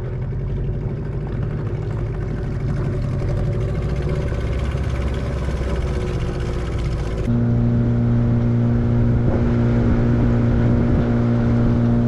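Small Parsun outboard motor running steadily, driving a wooden boat. About seven seconds in, the engine note changes abruptly to a louder, higher steady hum.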